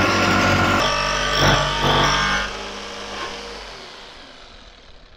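Electric jigsaw cutting through the van's sheet-steel roof, stopping about two and a half seconds in as the cut for the roof-vent opening is finished, with the sound dying away after.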